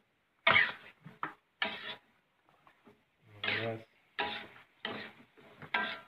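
A man's voice in short, broken bursts, about half a dozen, with hard silences between them.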